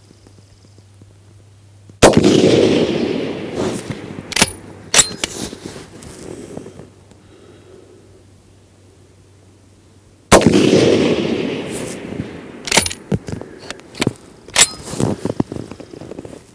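Two rifle shots from the Riverman Gun Works Modular Breakdown Rifle, an AR-15-type rifle, about eight seconds apart, fired while shooting a group at 500 yards. Each shot is followed by a long rolling echo that dies away over several seconds, with a few sharp cracks and clicks after it.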